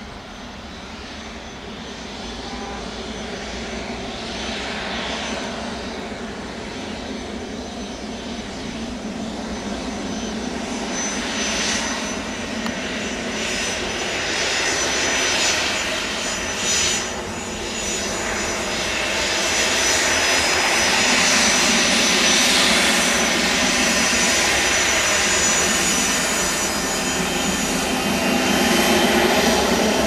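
Cessna Citation Latitude's twin Pratt & Whitney Canada PW306D1 turbofan engines at taxi power. A steady high whine sits over a rushing hum, growing steadily louder as the jet taxis up to and past the listener.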